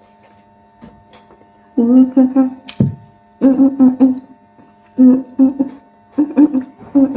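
A woman humming in short runs of three or four notes, over a steady electrical mains hum; a sharp click comes about three seconds in.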